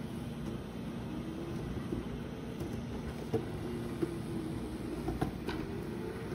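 Go-kart driven by re-purposed hoverboard brushless hub motors, running on concrete: a whine that wavers in pitch as the speed changes, over rolling noise, with a few sharp clicks.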